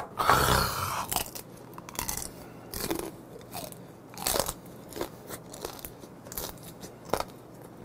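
Close-up crunching and chewing of steamed blue crab, with its shell cracking between the teeth in irregular crisp crunches. A louder noisy sound comes in the first second.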